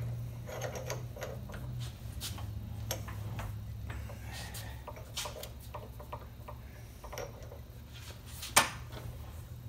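Low steady hum of a Millrite drill press with scattered small metallic clicks and taps from a bit being handled in the chuck, and one sharp click near the end.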